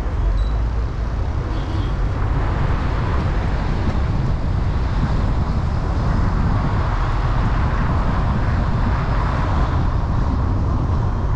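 Car driving on a rain-wet road: a steady low engine and road rumble with a hiss of tyres on wet asphalt that grows stronger about halfway through.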